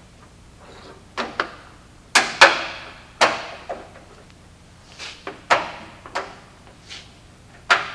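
Sharp clicks and knocks, about eight in all, each with a brief ring, as an LED light bar is pressed and snapped into its mounting clips; the loudest come a little over two seconds in.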